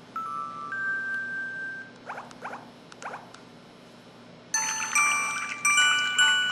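LG-SD1500 mobile phone's built-in sound effects played through its small speaker: a short two-note electronic chime, then a few quick rising bubbly blips, then about four and a half seconds in a bright, busy chiming jingle begins.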